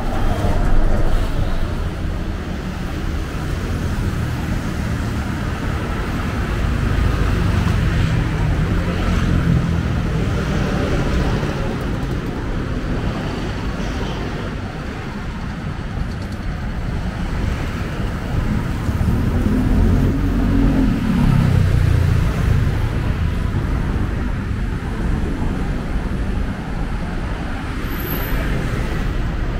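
City street traffic: cars and other motor vehicles running past in a steady rumble, with one engine rising and then falling in pitch about two-thirds of the way through.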